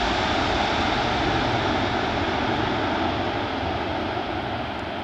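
Jet noise from a C-17 Globemaster III's four turbofan engines as it lands. It is a steady rushing sound that fades over the last couple of seconds as the aircraft rolls away down the runway.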